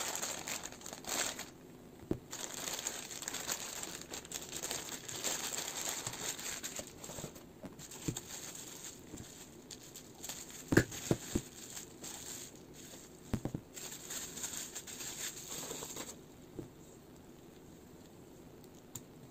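Clear plastic packaging bags crinkling and rustling as an action figure is unwrapped by hand, with a few sharp snips of scissors cutting the plastic about halfway through. The crinkling stops about three seconds before the end.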